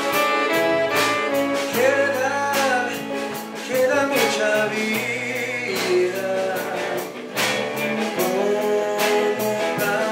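A man singing held, gliding notes into a microphone over live band accompaniment with a steady beat.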